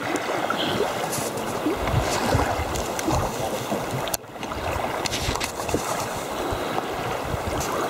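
Wind gusting over the microphone with rumbling buffets, over choppy lake waves washing and lapping around the canoe, with a brief dropout a little over four seconds in.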